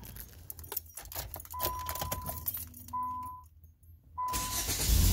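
Car keys jangling, with a repeating electronic ding from the 2003 Nissan Sentra's warning chime. Near the end the 1.8-litre four-cylinder engine is cranked and starts running.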